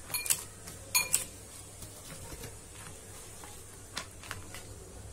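Borosil glass mixing bowls clinking as they are handled and set down: two sharp, ringing clinks about a second apart near the start, then a few lighter taps about four seconds in.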